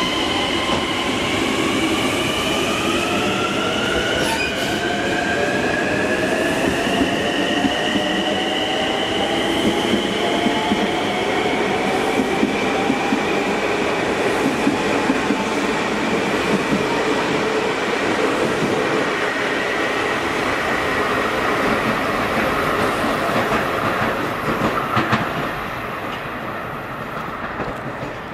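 Long Island Rail Road electric multiple-unit train pulling out of the station and gathering speed: its traction motors whine in several tones that climb steadily in pitch over the first fifteen seconds or so, over a steady rumble of wheels on rail. A few wheel clicks come near the end as the sound begins to fade away.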